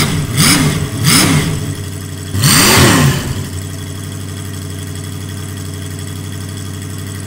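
Crane engine sound effect: a steady running drone, revved up and down three times in quick succession, then once more, longer and louder, about two and a half seconds in, before settling back to a steady run.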